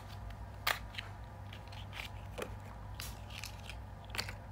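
Small cardboard staples box being opened by hand: a few sharp clicks and crackles of the card flaps and fingers, the loudest about three quarters of a second in.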